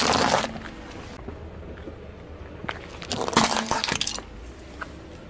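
Objects crunching and cracking under a car tyre as it rolls over them: a short burst of crunching at the start and a longer, crackly one about three seconds in.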